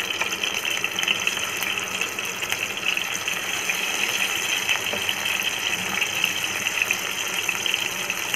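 Masala-coated squid rings deep-frying in hot oil in a kadai: a steady sizzle with fine crackling as the pieces are dropped into the oil.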